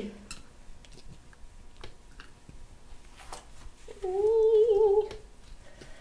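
A woman humming one wavering note, about a second long, after a few seconds of faint taps and clicks.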